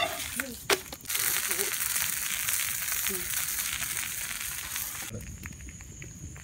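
Banana-leaf parcel of pearl spot fish sizzling on a hot flat pan over a wood fire. Two sharp clicks come as the parcel is handled at the start; the sizzle sets in abruptly about a second in and cuts off suddenly about five seconds in.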